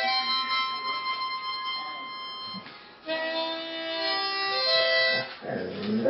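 Harmonica playing long held chords, breaking and changing to new notes about 3 s in. Near the end a dog's rising howl begins over it.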